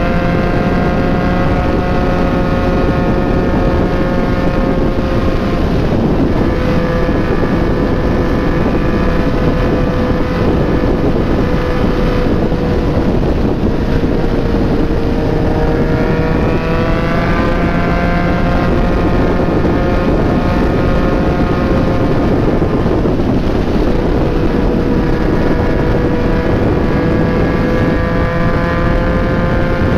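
Yamaha MT-09 three-cylinder engine through a replica Akrapovic exhaust, running at a steady highway cruise, its note dipping a little about halfway through and climbing back, with wind rushing over the microphone.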